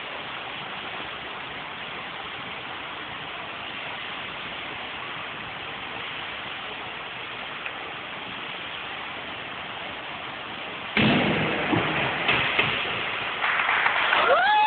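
Steady hiss of an indoor pool hall's ambience. About eleven seconds in, spectators suddenly break into loud cheering and clapping, with a whoop that rises and falls in pitch near the end.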